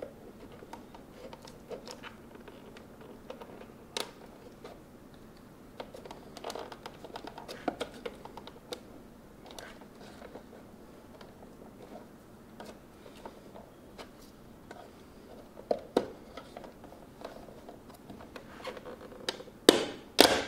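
Scattered light plastic clicks and scratches of hands prying at the mirror glass of a Cadillac ATS-V side mirror. Near the end come two loud sharp snaps as the glass pops off its clips.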